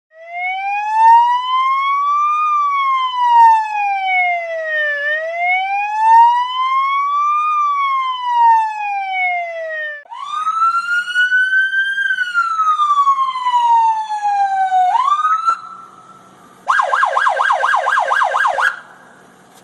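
Emergency vehicle siren in a slow wail, rising and falling twice over about ten seconds, then a second wail cycle, a brief held tone, and near the end about two seconds of fast yelp sweeps, roughly five a second.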